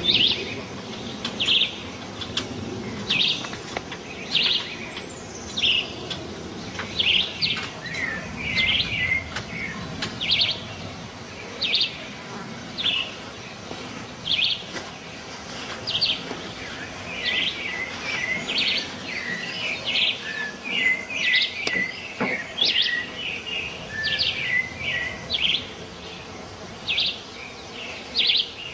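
Songbirds calling: one bird repeats a short high call about once a second, and more chirps join in over the second half.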